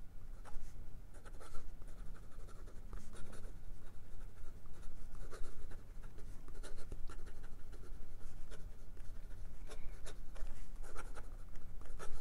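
Broad fountain-pen nib of a Waterman Carene scratching across notebook paper in quick, irregular strokes of cursive handwriting.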